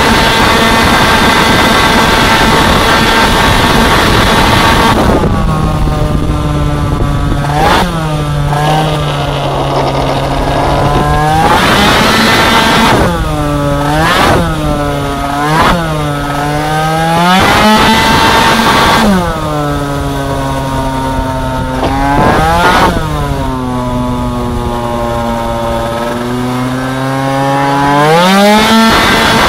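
Two-stroke racing scooter engine, heard from the onboard camera. It runs flat out at high, steady revs for the first few seconds, then keeps backing off and picking up again through a run of corners, the pitch falling and climbing back about eight times.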